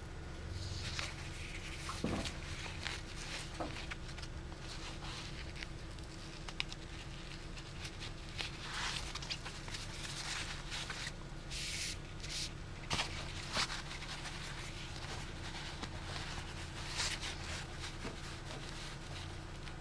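Cloth rustling in scattered bursts, with a few light ticks, as a thin rod is threaded through the fabric tabs along the bottom of a Roman shade. A steady low hum runs underneath.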